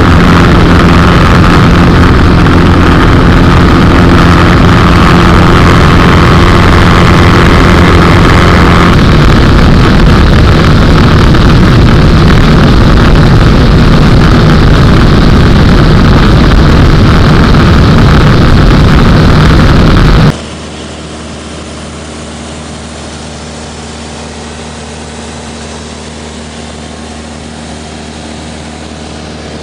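Homebuilt Bush Caddy light aircraft's piston engine and propeller running steadily in flight. The engine's tone shifts about nine seconds in. About twenty seconds in, the sound drops abruptly to a much quieter, duller steady drone.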